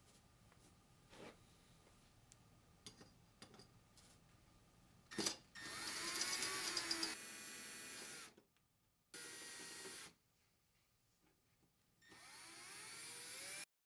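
Power drill/driver driving the bracket screws into the mounting material, in three runs: about two and a half seconds starting about five seconds in, a short one about a second later, and a longer one near the end with a rising whine. Light clicks and a knock of handling come before it.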